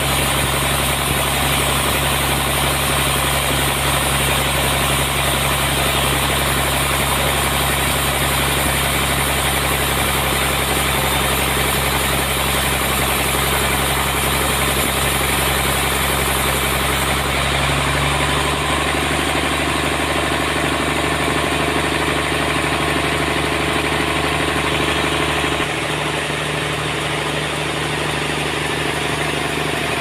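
Large band sawmill running, its blade sawing a slab off a trembesi (rain tree) log: a steady machine drone with a low hum. The tone shifts about two-thirds of the way through, and the level drops slightly near the end.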